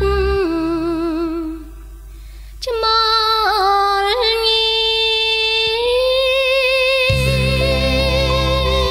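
Khmer pop song: a high voice sings long held notes with vibrato over sparse accompaniment. The low backing drops out about half a second in and comes back about seven seconds in.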